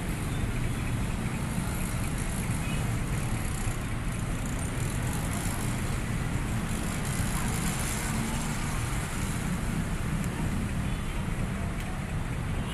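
Busy urban street traffic: motor scooters and cars passing, a steady mix of engine hum and road noise.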